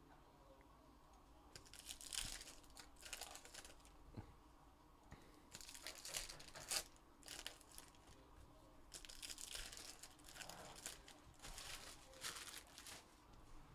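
Foil trading-card pack wrappers crinkling and tearing as they are opened by hand, in four short faint spells of crackle, about two, six, nine and twelve seconds in.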